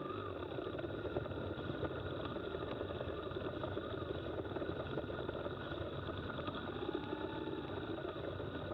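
BMW R1150GS motorcycle's boxer-twin engine running steadily at low speed.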